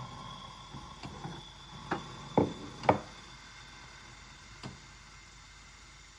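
DeLonghi Magnifica espresso machine heating up for milk steaming: a steady hum and hiss that fades away over the first few seconds. Several sharp clicks come through it, the loudest about two and a half and three seconds in.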